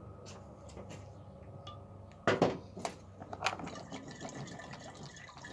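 Water sloshing in a steam cleaner's metal boiler as it is tipped to empty it, rinsing out limescale that had clogged the steam outlet. A few sharp knocks from the housing being handled come about two to three and a half seconds in.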